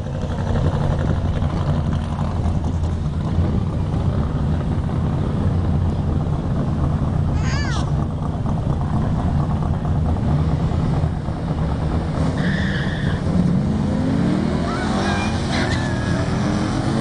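Camaro's engine, on its old exhaust setup, rumbling steadily at the drag-strip start line alongside a second car, then about fourteen seconds in the cars launch and accelerate hard, engine pitch climbing as they pull away.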